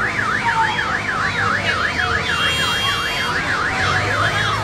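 Electronic siren warbling in a fast up-and-down sweep, about three times a second, which stops just before the end.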